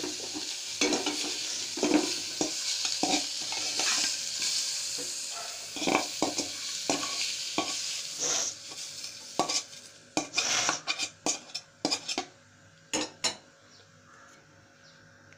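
A metal spoon scrapes and clinks against a metal cooking pot as the cooked pumpkin peel and chillies are scraped out, over a steady sizzle from the hot oiled pot. The sizzle fades about ten seconds in, leaving a few sharp clinks of spoon on pot.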